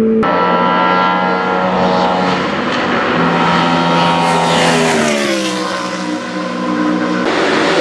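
Racing car engine running at high revs with a steady note, then the pitch falls steeply about halfway through. Near the end it cuts abruptly to another engine sound.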